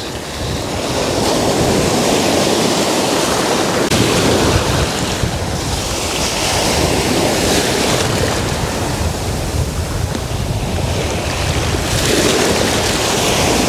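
Breaking surf foaming and washing around a person's legs, heard close up just above the water, swelling louder a few times as waves roll through.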